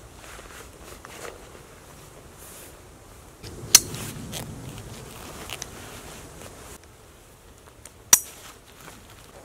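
A backpack's plastic hip-belt buckle snapping shut with one sharp click about four seconds in, amid rustling of straps and clothing, then a second sharp click near the end as the jacket front is fastened.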